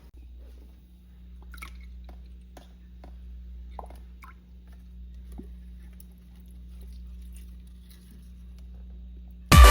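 Faint scattered drips and small wet clicks of water falling on plant soil, over a steady low hum. Loud electronic dance music cuts in suddenly near the end.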